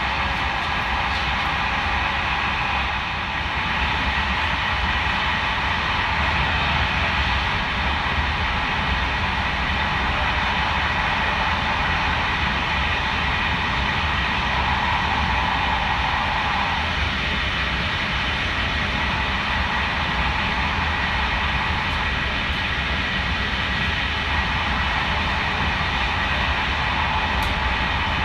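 Passenger train running at speed, heard from inside the carriage: a steady rumble of wheels on the rails with faint steady tones over it.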